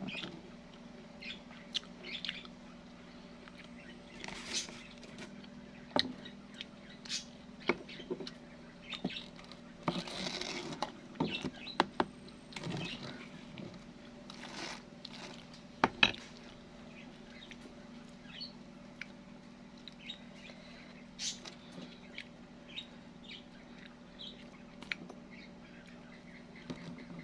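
A person eating with a metal spoon: scattered clicks and scrapes of the spoon against a plate and a plastic tub, with chewing, over a steady low hum.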